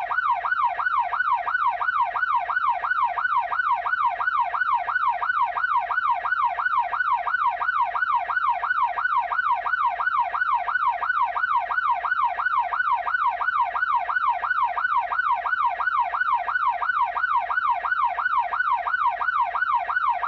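Ambulance electronic siren in a fast yelp, its pitch sweeping up and down about twice a second, steady and unbroken.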